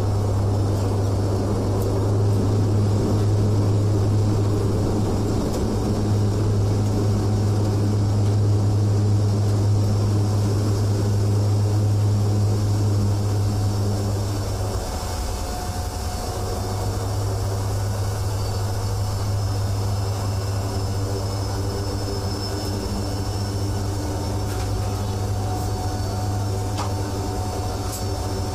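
A steady low engine drone that drops in level about halfway through and then carries on evenly.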